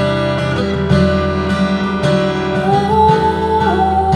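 Solo fingerstyle steel-string acoustic guitar: plucked bass notes and chords under a melody. Over the second half a high melody note is held, stepping slightly lower near the end.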